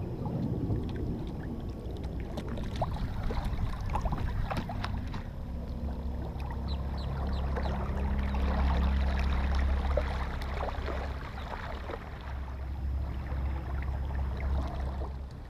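Water splashing and lapping against the hull of a small round boat moving along under its electric trolling motor, with many small splashes and a steady low hum from about five seconds in.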